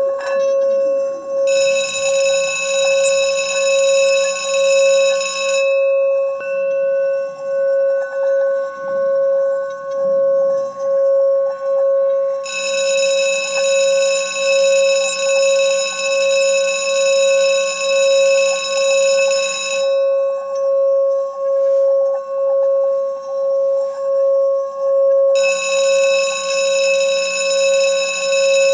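An electronic alarm ringing: a steady tone pulsing about once a second, with a bright, high, bell-like ring that comes on three times, each time for several seconds.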